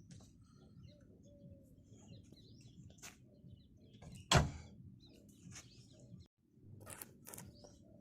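A few short sharp knocks over a low background, the loudest about four seconds in, with faint chirps like small birds.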